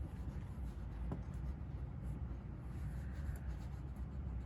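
A child writing by hand, faint scratching of a pen on paper or card, over a steady low room hum.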